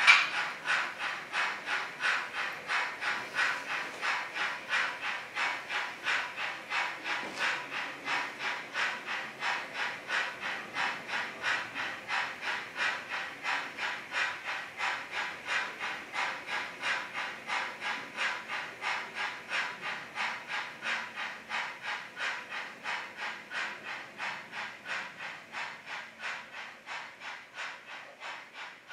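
Sound-equipped HO-scale model steam locomotive chuffing in an even rhythm of about two to three chuffs a second, slowly growing fainter.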